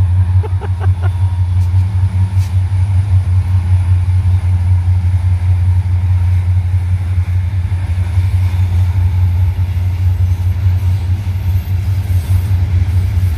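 Freight train's diesel locomotives passing close by with a loud, steady low rumble.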